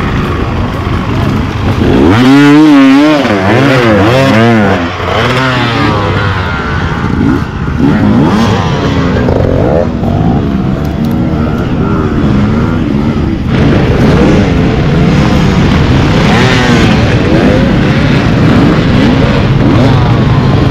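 Two-stroke enduro dirt bike engine revving up and down under load. The pitch swings rapidly from about two to six seconds in, then runs steadier with smaller rises and falls.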